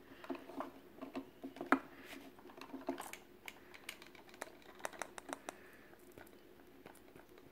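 Quiet, irregular clicks and taps of a plastic measuring spoon against a thin plastic cup as graham cracker crumbs are spooned in, the sharpest tap a little under two seconds in.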